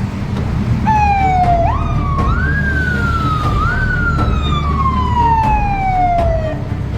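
Emergency vehicle siren wailing, starting about a second in: a tone that slowly falls and twice sweeps quickly back up, then stops shortly before the end. Underneath is a steady low rumble of engines and traffic.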